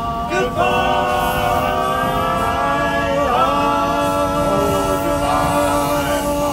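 Barbershop quartet of four male voices singing a cappella in close harmony, holding the song's long closing chords, with one change of chord about three seconds in.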